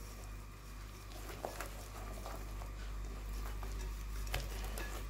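Balloon whisk beating a thick mix of egg yolk, sugar and cornstarch in a ceramic bowl to work out the lumps: a soft, quick patter of the wires through the batter, with a couple of sharper clicks against the bowl.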